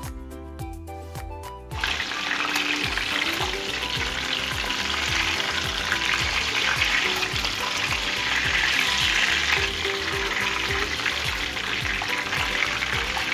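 Whole fish shallow-frying in hot oil in a non-stick pan, sizzling steadily. The sizzle comes in suddenly about two seconds in.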